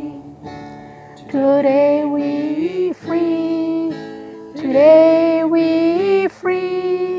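A woman singing a slow gospel song in Kriol in long held notes, over strummed acoustic guitar. The first second is softer, as one phrase ends before the next begins.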